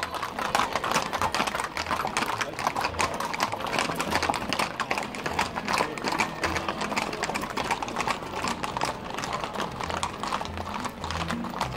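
Hooves of many horses clip-clopping on an asphalt road at a walk, a dense stream of overlapping clicks.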